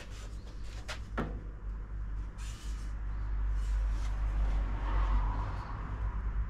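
Wooden planks knocked and shifted against a timber frame: two sharp knocks about a second in, then brief scraping, over a steady low rumble.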